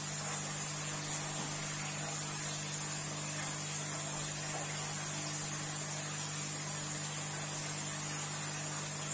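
Steady electrical hum with a constant hiss from running aquarium equipment such as filter and pump motors.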